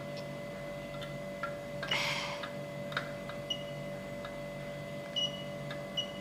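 Faint scattered clicks and small ticks over a steady electrical hum, with a brief rustle about two seconds in.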